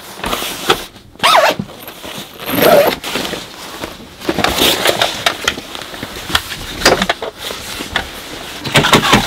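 Rustling and irregular knocks of bedding being handled and spread out: an electric heating mat laid over the bed.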